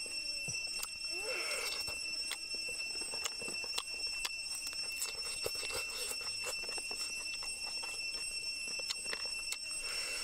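Steady high-pitched drone of forest insects, holding several constant pitches, with scattered small clicks and wet chewing and tearing of grilled pork ribs being eaten. There is a louder burst of biting near the end.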